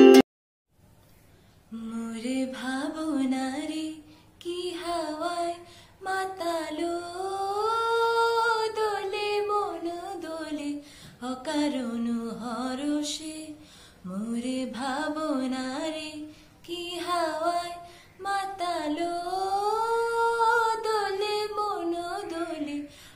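A girl singing solo without accompaniment, starting about two seconds in: a slow melody sung in phrases, with held notes and sliding pitch and short pauses between phrases.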